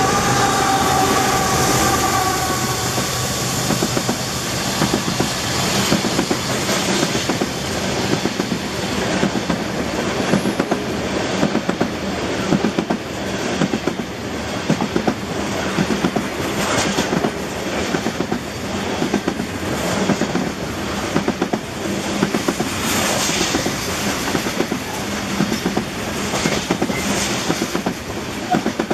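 Freight train of loaded covered hopper cars rolling past at speed, the wheels clicking and clattering over rail joints in an uneven rhythm under a steady rumble. A high-pitched squeal slides down and fades away in the first few seconds.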